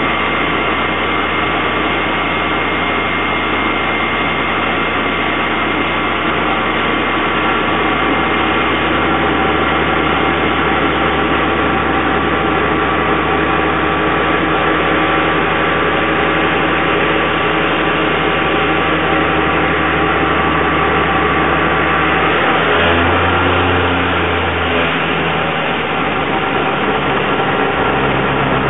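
Brake test rig running steadily with its disc glowing red-hot under the caliper: a continuous mechanical running noise with faint steady whine tones. The whine fades after about twenty seconds, and a deeper hum swells for a couple of seconds near the end.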